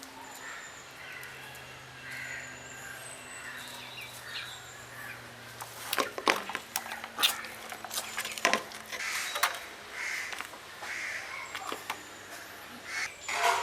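Birds calling repeatedly, with a run of sharp knocks and clicks starting about halfway through.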